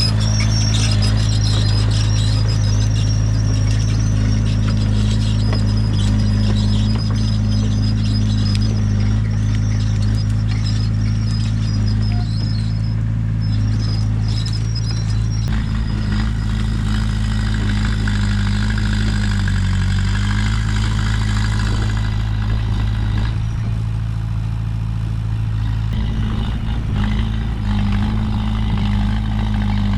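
Komatsu bulldozer's diesel engine running steadily, with a high-pitched squeal over it through the first half. The engine note dips briefly about twenty seconds in.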